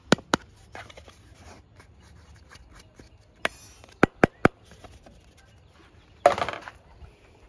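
Hard plastic toy canteen handled over a corrugated metal sheet: scattered sharp clicks and taps, with three quick clicks about four seconds in, then a short scraping clatter as it is set down on the sheet near the end.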